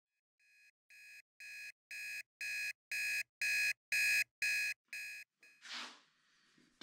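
Electronic alarm beeping about twice a second, about ten beeps, each louder than the last, then stopping; a short rustle follows near the end.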